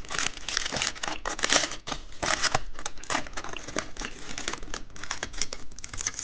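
Plastic candy packaging crinkling and tearing as it is unwrapped by hand, with many small irregular crackles.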